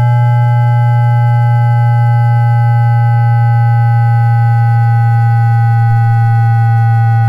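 JR East E2-1000 Series Shinkansen traction motor and its 3-level IGBT VVVF inverter, picked up electromagnetically by an induction coil while braking in synchronous unipolar multi-pulse mode. Several steady electric tones sound together over a strong low hum, all sliding slowly down in pitch as the train slows.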